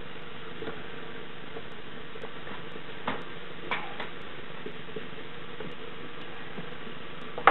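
A few light clicks and taps of small objects being handled at a table, spaced a second or so apart with a sharper click at the end, over a steady hiss.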